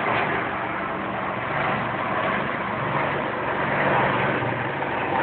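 Helicopter running steadily: a continuous rushing noise with a low hum underneath.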